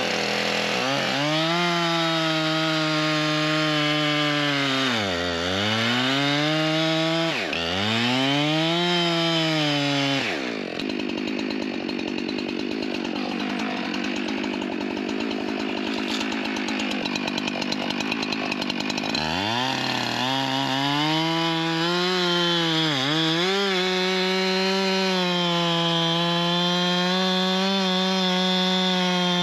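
Husqvarna two-stroke chainsaw cutting through a log at full throttle, its revs dipping briefly twice. About ten seconds in it drops to idle, then revs back up about nineteen seconds in and cuts on steadily.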